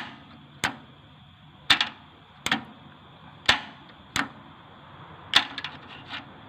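A series of sharp clicks and knocks, about seven spaced irregularly over six seconds, from hands working on a microwave oven's door switch.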